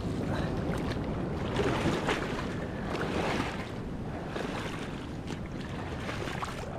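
Shallow surf washing and sloshing over sand and kelp, with wind noise on the microphone.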